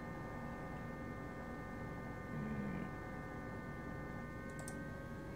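Stepper motors of a homemade Arduino CNC laser plotter driving the laser head through a move at the homing feed rate: a steady electronic whine made of several held tones, one of them shifting slightly in pitch near the end.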